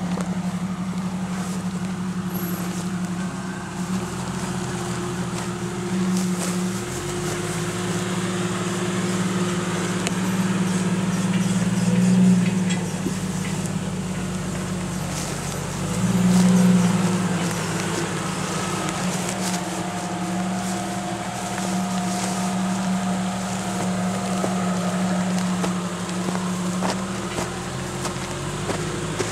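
Lifted Jeep Cherokee XJ's engine running steadily at low speed as it crawls off-road through tall grass, rising in pitch and loudness twice, about twelve and seventeen seconds in.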